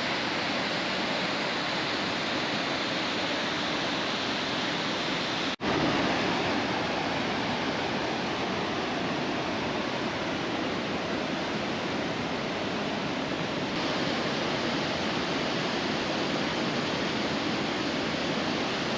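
Waterfall: a steady rush of falling water, with one brief break about five and a half seconds in where the sound cuts out and comes straight back.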